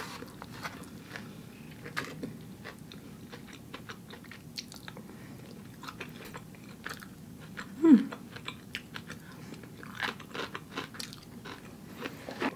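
A person chewing a mouthful of Impossible burger, close to the microphone: many small wet clicks of chewing. About eight seconds in there is one brief sound that falls in pitch, the loudest moment.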